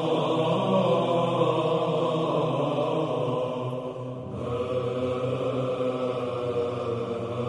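Orthodox church chant: voices holding long, sustained notes, moving to a new phrase about four seconds in.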